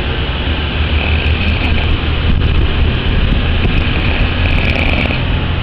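Loud snoring, rough breaths that swell and fade every few seconds over a low rumble.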